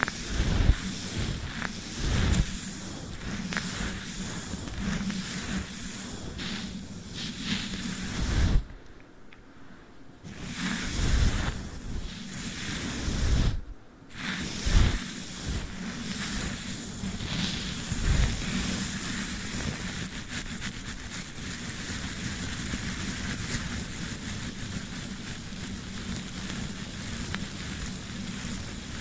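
Sticky tape and a brush worked against the microphone: dense crackling and scratching with fine clicks, breaking off briefly twice, about nine and fourteen seconds in.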